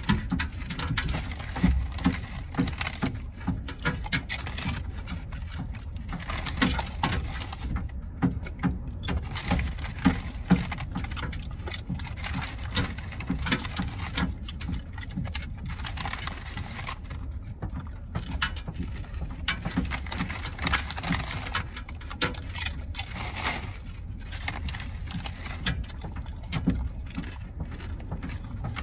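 Wavy potato chips being chewed by a man and a Belgian Malinois, with many irregular crisp crunches over a low steady rumble.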